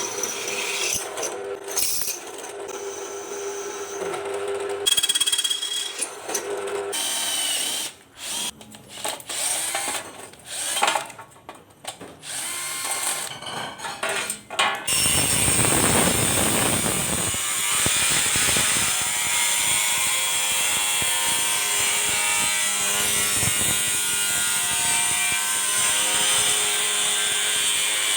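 Workshop power tools at work: short bursts of drilling and tool noise in quick succession, then, about halfway through, a power tool that starts up and runs steadily and loudly.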